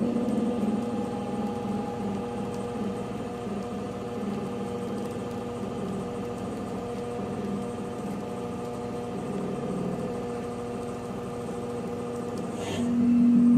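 Denford Novaturn CNC lathe running a turning program: the spindle drive hums steadily with several held tones as the part spins. Near the end a short hiss comes, and the machine then gets much louder.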